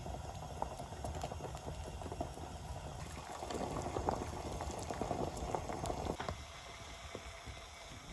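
Liquid boiling in a saucepan on a portable stove, with a dense run of small bubbling pops over a low rumble.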